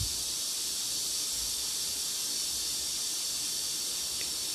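Steady high-pitched hiss with nothing else over it.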